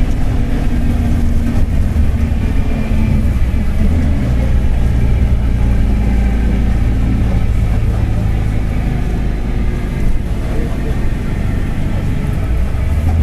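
Mercedes-Benz OF-1721 BlueTec 5 city bus under way: its diesel engine running, with a low rumble from the driveshaft. The engine note changes a few seconds in and again around ten seconds in.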